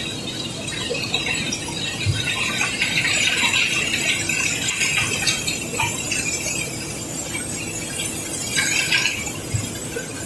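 Cobblestones being unloaded from a barge, clattering and grinding against one another in a continuous dense rattle with a high, scraping edge.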